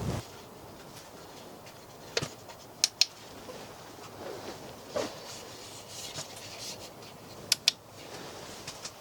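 Light rubbing and handling noises with a few sharp clicks, two of them coming in quick pairs, over a quiet background.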